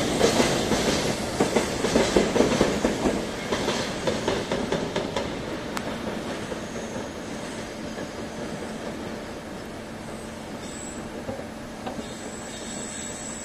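Container freight train rolling past with its EF210 rear banker locomotive pushing on the Seno–Hachihonmatsu grade: wheels clacking over the rail joints, loud for the first few seconds and then fading as the train draws away. A thin, high wheel squeal comes in near the end.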